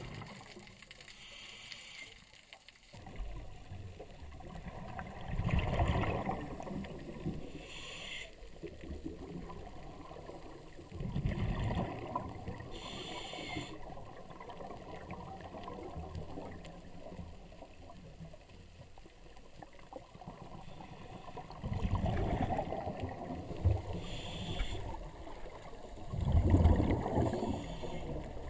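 Scuba diver's exhaled bubbles rumbling through an underwater camera housing, in four loud bursts about a second long, over steady underwater hiss. Short high hisses fall between the bursts.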